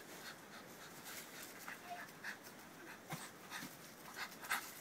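A dog breathing hard and panting, faint, while it grips a rope in its teeth, with a few short irregular scuffs.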